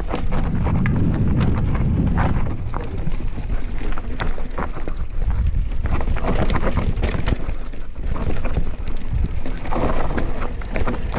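Giant Reign 2 LTD 2017 mountain bike descending a rocky dirt trail: knobby tyres rolling over dirt, roots and stones with a continuous rumble, and frequent rattling clicks and knocks from the bike's chain and suspension over the bumps. Wind buffets the microphone underneath.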